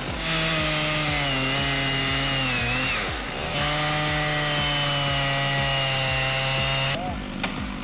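Chainsaw running at high revs, its pitch sagging slightly as it works, breaking off briefly about three seconds in, then running steadily again until it stops abruptly about seven seconds in. A steady beat of background music runs underneath.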